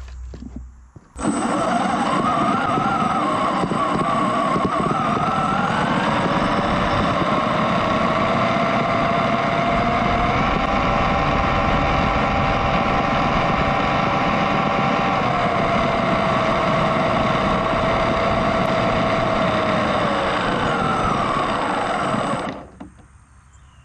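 A 1/8-scale RC rock crawler's brushless electric motor and gear drivetrain whining, heard from on board over a low rumble. The whine climbs in pitch about five seconds in, holds, then drops in steps toward the end, over a steady very high whine. It starts abruptly about a second in and cuts off near the end.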